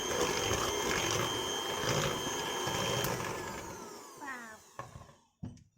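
Electric mixer running steadily with a whine as it beats cookie batter, then switched off about three seconds in, its pitch falling as it spins down. A few light clicks follow.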